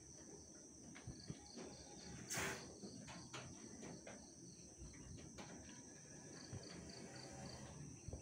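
Insects chirping: a steady high buzz with a short pulsed chirp repeating about four times a second in spells. A brief rush of noise about two and a half seconds in is the loudest moment, with scattered faint clicks.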